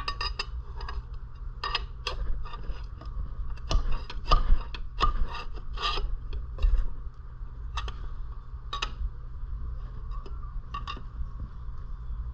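Metal hand tools clicking and scraping against small-engine parts in irregular bursts, loudest about four to five seconds in, over a steady low hum.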